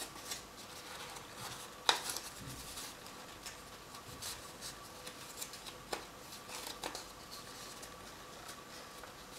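Folded paper petals being handled and pressed together, rustling and crinkling, with a few sharp clicks, the loudest about two seconds in.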